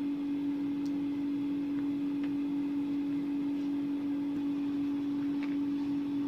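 A steady mechanical hum with one fixed pitch, with a few faint light clicks as small metal airbrush parts are handled in a plastic case.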